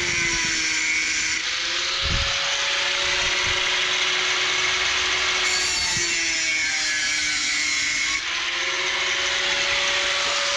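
Handheld angle grinder with a cutting disc cutting through a rectangular aluminum tube: a steady hissing grind over the motor's whine.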